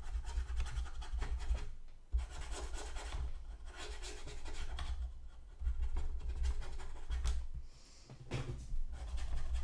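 Paintbrush scrubbing against the plastic turret top of a model tank, blending dots of oil paint into the surface. It comes in three or four spells of a second or two each, with a low rumble underneath.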